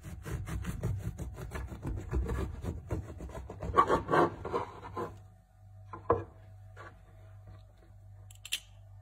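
Serrated bread knife sawing through the crust of a baked casatiello, a Neapolitan Easter bread: quick rasping strokes for about five seconds, with a few louder crunches near the middle. Then a couple of short crackles as the cut loaf is pulled apart by hand.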